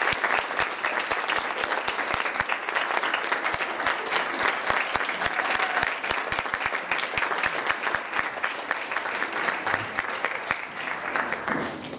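Audience applauding, a dense patter of many hands clapping that thins out and drops away shortly before the end.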